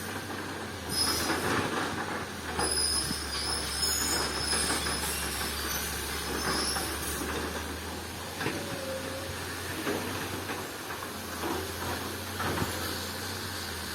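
Tracked earthmoving machine working, its diesel engine running steadily under high-pitched metal squeals and scattered clanks from the tracks and steelwork.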